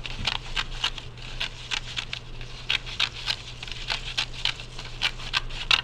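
Scissors snipping through paper in a quick, uneven run of short cuts, with the paper rustling as it is turned.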